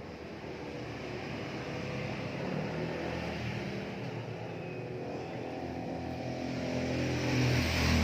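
A motor vehicle's engine running, growing steadily louder as it draws near and loudest near the end.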